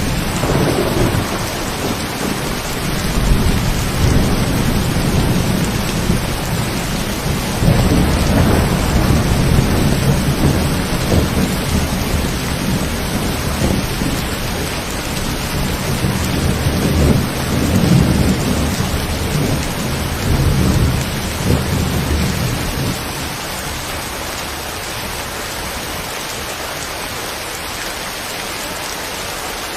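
Steady rain falling, with long rolls of thunder rumbling and swelling underneath. The thunder dies away about three-quarters of the way through, leaving only the even hiss of the rain.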